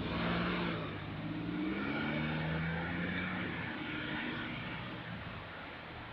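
A vehicle passing close by, its engine or motor tone climbing in pitch as it picks up speed, then fading away.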